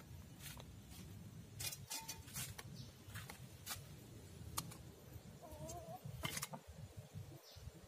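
Faint scattered clicks and knocks over a low rumble, with a short wavering call from a farm animal about five and a half seconds in.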